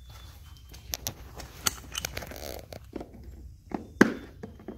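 Short clicks and knocks of plastic quick-connect nozzle tips being handled at an electric pressure washer's onboard nozzle holder, while the 0-degree tip is swapped for the 15-degree one. The sharpest click comes about four seconds in, over a low steady rumble.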